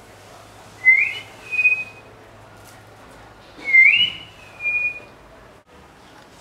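A person whistling twice, about three seconds apart. Each whistle is a quick upward slide followed by a short steady note.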